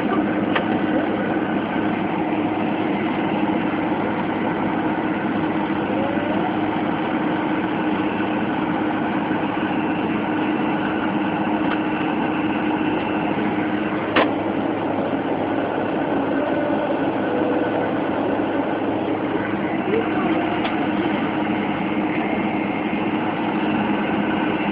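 Fokker 100's rear-mounted Rolls-Royce Tay turbofans heard from inside the cabin, running steadily at low ground power: a constant drone with a steady whine on top. A single sharp click sounds about halfway through.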